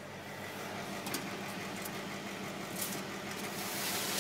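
Commercial convection oven's fan running with a steady hum, the oven door open, with a few light clicks and a rising hiss near the end as a baking tray of macarons is drawn out onto the rack.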